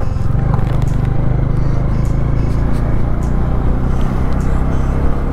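Bajaj Dominar 400's single-cylinder engine running steadily at an even low pitch as the motorcycle is ridden along the road, with road and wind noise over it.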